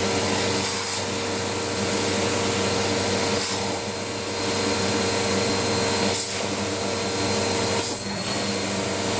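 Vacuum cleaner motor running steadily with a hum and hiss, with four short louder swishes along the way.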